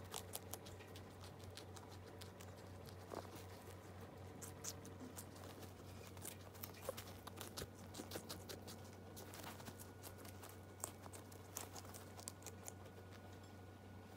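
Guinea pigs chewing watermelon rind: faint, irregular crunching and nibbling clicks, with a steady low hum underneath.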